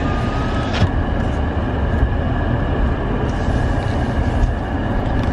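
Car engine running, heard from inside the cabin as a steady low rumble, with a single click about a second in.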